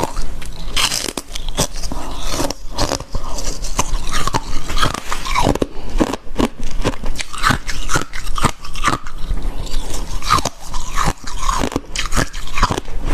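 Close-miked biting and chewing of crisp ice scraped from a freezer: a dense, continuous run of sharp crunches and crackles.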